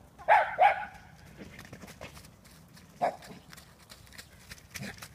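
Small dog barking in short sharp yips: two in quick succession, then one more about three seconds later, with faint footfalls on grass between.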